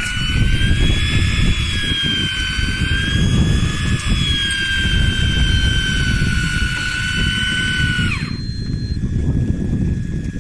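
Electric fishing reel motor whining steadily as it winds in line, with a slight waver in pitch. It cuts off about eight seconds in with a brief falling pitch, over a steady low rumble.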